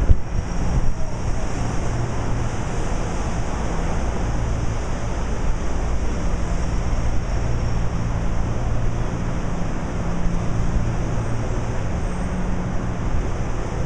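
Steady city street noise, traffic and wind on the microphone, with a low hum underneath and a single bump right at the start.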